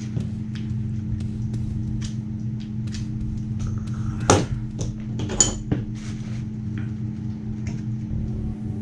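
Scattered light metal clicks and taps of a screwdriver being fitted to the small safety screw on a Steyr M95 bolt, two sharper taps about four and five and a half seconds in, over a steady low hum.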